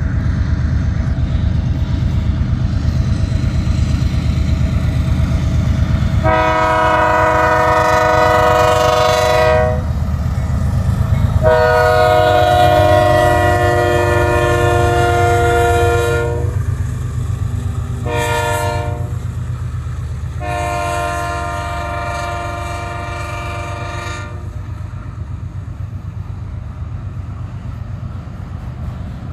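BNSF diesel freight locomotives rumbling past while the lead unit blows its multi-tone air horn in the grade-crossing signal: long, long, short, long. After the horn the rumble of the train rolling by slowly fades.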